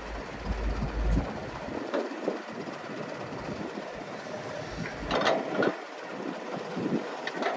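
Hydraulic excavator at work loading dirt: a steady machine noise with a low rumble in the first second, then sharp metallic clanks about two seconds in, twice around five seconds in, and near the end.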